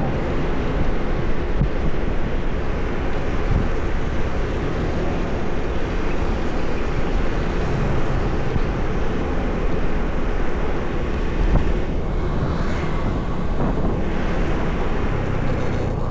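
Steady wind rush buffeting the microphone, with a low road and engine rumble, as from riding along city streets on a moving vehicle.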